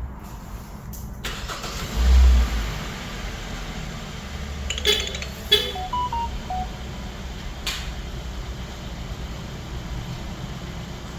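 A 2016 Kia K7's engine starting by remote start: it catches about two seconds in with a loud rise in engine sound, then settles into a steady idle. A few sharp clicks and a short run of faint beeps follow partway through.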